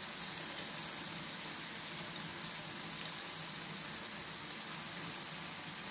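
Diced pork, onion, bell pepper and tomatoes frying in oil in a skillet: a steady, even sizzle with fine crackling.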